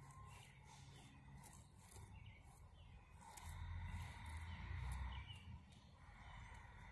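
Faint outdoor ambience with small birds chirping in the distance. A low rumble swells for a couple of seconds in the middle.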